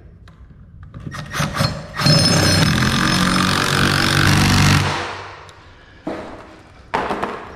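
Cordless drill driving a screw through a metal garage door opener header bracket into a wooden header. A few short clicks come first, then the drill runs steadily for about three seconds and winds down as the screw seats.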